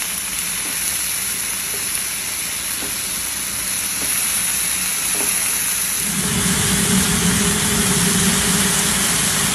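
Cubed mutton frying on a large flat round griddle: a steady sizzling hiss as the meat gives off steam, with faint taps of wooden spatulas stirring it. The sizzle grows louder and fuller from about six seconds in.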